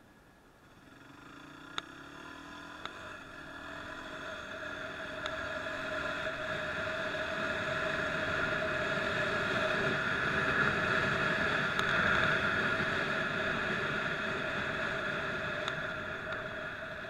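Motorcycle engine and riding noise picked up by a helmet-mounted camera, with a steady drone. It swells gradually from about a second in, is loudest past the middle, and fades near the end; a couple of short clicks come early on.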